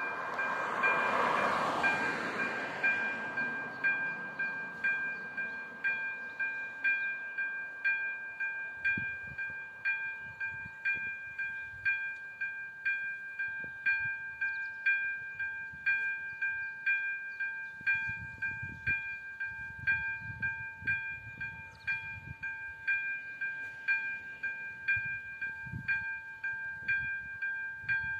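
Czech level-crossing electronic warning bell ringing steadily at about one strike a second, sounding while the crossing is closed for an approaching train. A car passes close by in the first few seconds.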